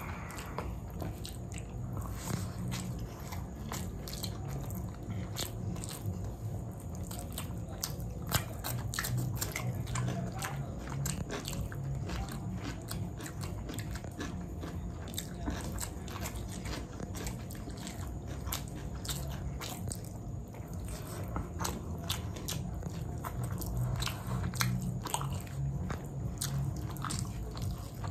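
A person chewing mouthfuls of veg fried rice and chicken rezala gravy, with close, wet mouth sounds, many small irregular clicks and an occasional crunch.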